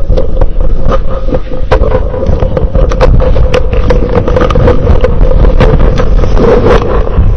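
Microphone handling and movement noise, loud and close: rumbling and scraping with frequent clicks and knocks over a steady hum.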